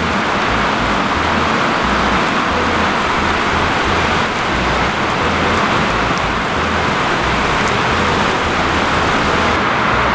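Heavy rain falling in a steady downpour, a lot of rain, without a break.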